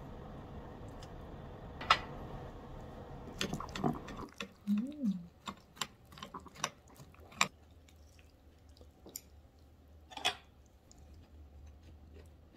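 Light clinks and taps of utensils on ceramic bowls and a plate, a dozen or so scattered strikes with two sharper ones, about two and ten seconds in. A steady low kitchen hum under the first few seconds drops away about four seconds in.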